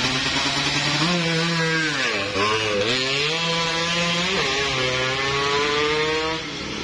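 Two-stroke single engine of a Yamaha F1ZR moped, bored out to about 116 cc, running hard as it is ridden. Its pitch holds high, dips sharply twice, a little after two seconds and again near four and a half seconds, and climbs back each time. It turns slightly quieter near the end.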